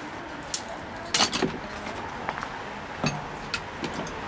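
Several sharp clinks and knocks of hard objects being handled, with a quick cluster of them a little over a second in and a few more near the end, over steady background noise.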